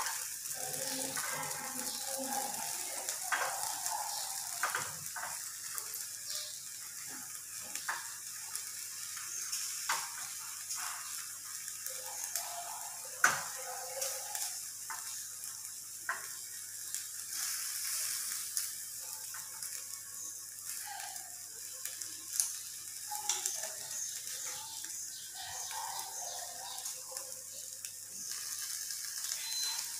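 Marinated chicken pieces sizzling on an electric tabletop grill, a steady high hiss. Scattered light clicks of chopsticks against the wire rack and the steel bowl as pieces are set down, the sharpest about 13 seconds in.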